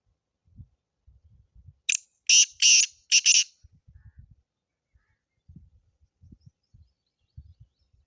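Black francolin calling: one quick phrase of four loud, scratchy notes about two seconds in, lasting about a second and a half, over faint low background rumble.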